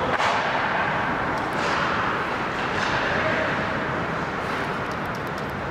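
Ice hockey play on a rink: a steady wash of skate and rink noise with several sharp clacks of sticks and puck, a cluster of them near the end.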